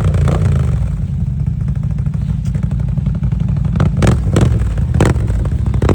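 ATV engine running steadily at a low, even pitch. Several sharp knocks or clatters come in the second half.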